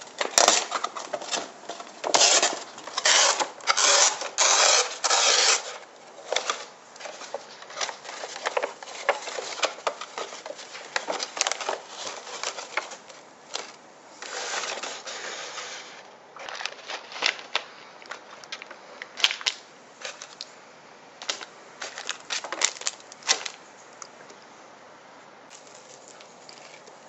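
Packaging of an instant cup noodle being handled: plastic wrapping and seasoning sachets crinkling and rustling, with scattered clicks and taps as the paper lid is peeled back. The crinkling is loudest and densest in the first six seconds, and quieter near the end.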